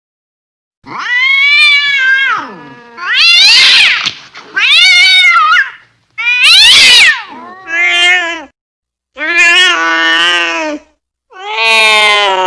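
Angry cat yowling: about seven loud, drawn-out caterwauls, each rising and falling in pitch, one after another with short pauses, starting about a second in.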